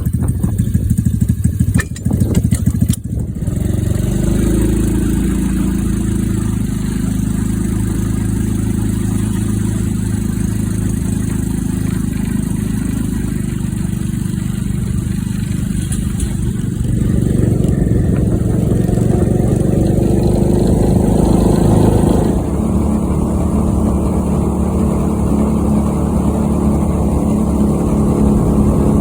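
Mini Jeep tug's small engine running as it is driven. There are a few knocks in the first three seconds, then a steady engine note that climbs as it speeds up about seventeen seconds in and drops back about twenty-two seconds in.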